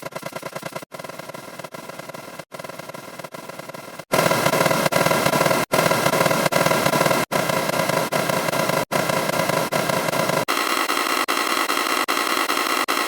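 A 'surprised' sound effect layered many copies deep and looped, blurring into a harsh, noisy cacophony with brief gaps about every second and a half. It jumps much louder about four seconds in and changes texture again near the end, as more copies are stacked.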